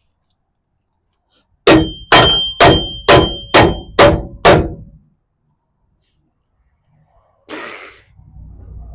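Seven hard metal-on-metal strikes, about two a second, each ringing briefly: a steel bumper bracket being hammered into place.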